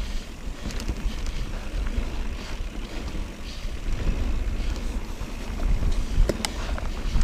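Mountain bike riding a dirt singletrack: steady tyre rumble with wind buffeting the microphone, and a few sharp clicks and rattles from the bike, two of them close together near the end.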